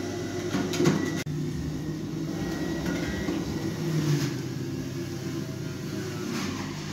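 A steady low mechanical hum, with a few light clicks and knocks about a second in.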